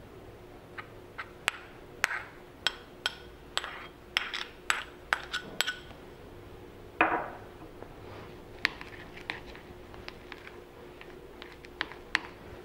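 A metal utensil clinking and tapping against a glass bowl while softened butter is mixed into grated parmesan. A quick run of ringing taps comes in the first half, then a louder knock about seven seconds in, then scattered taps.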